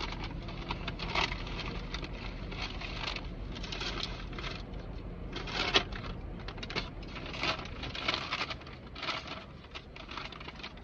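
Food packaging rustling and crinkling in repeated short bursts as it is handled, over a low steady hum.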